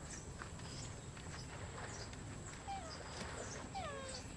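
A monkey giving two short calls that fall in pitch, one about two and a half seconds in and a slightly longer one near the end, over scattered high bird chirps and a steady low background noise.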